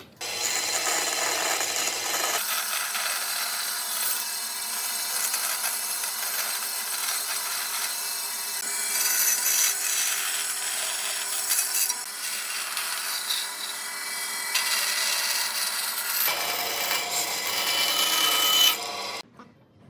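Narrow-blade power saw running and cutting curved pieces out of red hardwood, a steady hissing rasp of the blade through the wood. It starts abruptly just after the beginning and stops suddenly about a second before the end.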